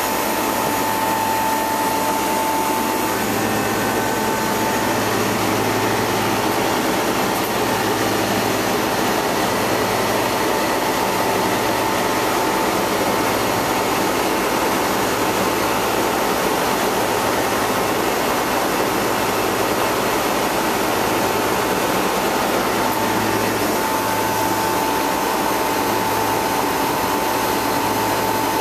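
Refrigeration condensing unit running steadily on its first run after a compressor replacement: a replacement two-speed Bristol compressor with the condenser fan blowing. It gives an even rush of air over a low hum, with a high whine that fades after a few seconds and comes back near the end.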